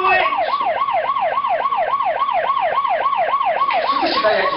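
Siren sounding in a fast yelp, its pitch sweeping up and down about five times a second.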